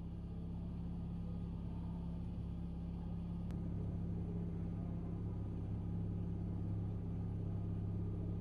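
A boat's motor running steadily at a constant pitch as the boat cruises.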